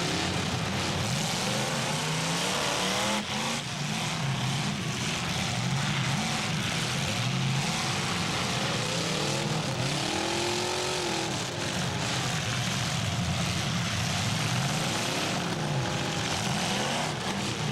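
Several full-size cars' engines running and revving hard at once over a steady din, their pitch sweeping up and down again and again as the cars accelerate and back off.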